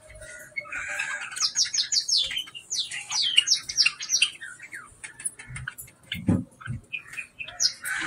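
A flock of budgerigars chirping and chattering, with a run of rapid, quick-falling high chirps in the first half and scattered calls after. A brief low thud about six seconds in.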